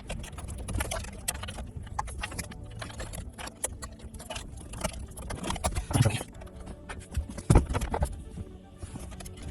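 Irregular clicks, taps and knocks of hands and tools working on a car's plastic dashboard trim and its fasteners, with two heavier knocks a little past the middle.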